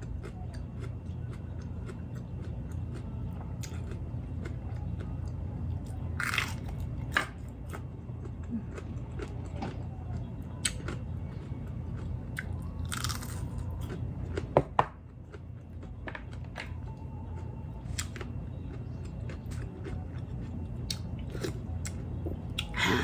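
Close-up chewing and biting of large raw chili peppers dipped in ssamjang, with crisp crunches and wet mouth clicks, a few louder bites scattered through, over a steady low hum.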